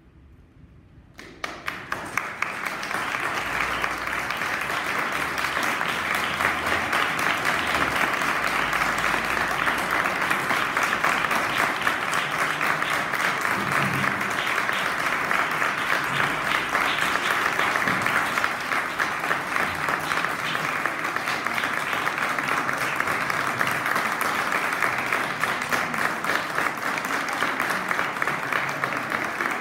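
Audience applauding, a dense clapping that breaks out suddenly about a second in and keeps going steadily.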